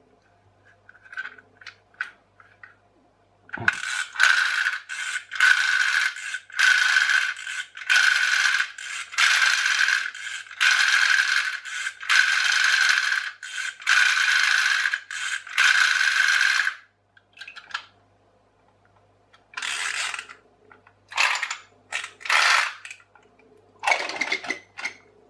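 Plastic pull-cord clockwork mechanism of a wind-up turtle bath toy, whirring and ratcheting in about a dozen bursts of a second or so as the cord is pulled and runs back in, then a few shorter bursts near the end. The mechanism is stiff and struggles in water, and the owner thinks it needs freeing up with lubricant.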